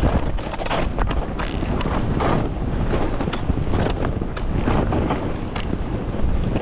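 Wind rushing over an action camera's microphone as a skier descends, with the skis hissing and scraping over chopped-up snow in surges every half second or so.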